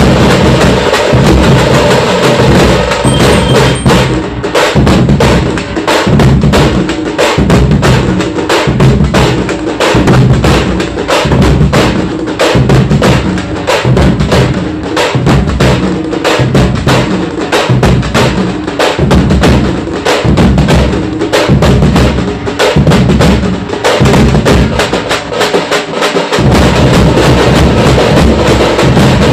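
Loud, fast street drumming by a drum group: rapid strikes over a heavy low beat that falls about once a second.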